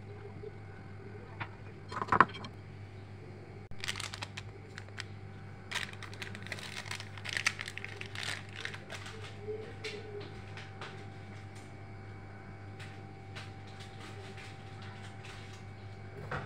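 Handling noises from sifting flour through a mesh sieve: a sharp knock about two seconds in, then scattered scraping and crinkling that die away after about ten seconds, leaving only a faint steady hum.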